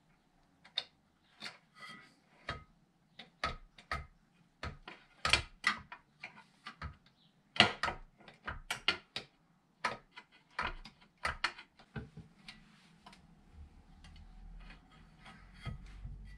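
Hand tools and outboard parts being handled during an impeller change: a run of irregular clicks and knocks, the loudest about halfway through, with a low rumble in the last few seconds.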